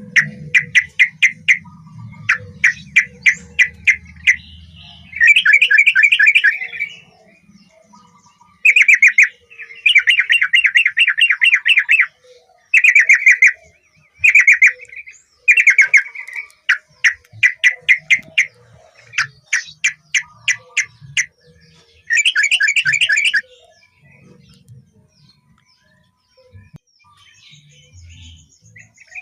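Yellow-vented bulbul (trucukan) singing in repeated bursts of rapid, bubbly chattering notes, each burst a second or two long with short pauses between. Near the end the song stops and it goes quiet.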